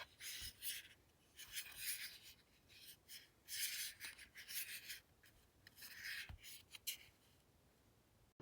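Handling noise: short bouts of scratchy rubbing and rustling, with a faint knock or two. It stops about a second before the end.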